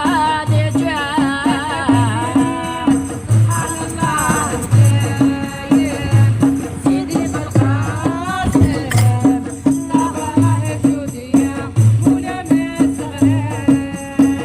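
Music: a voice sings a wavering, ornamented melody over a steady drum beat, with rattle-like hand percussion keeping time.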